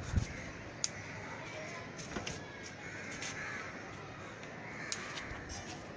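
Crows cawing, with a few sharp clicks of scissors snipping bitter gourd stems from the vine.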